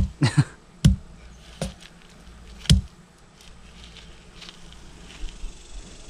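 A few sharp knocks, the loudest nearly three seconds in: a small child striking dry cicada shells lined up on a rubber tyre with a hammer to squish them.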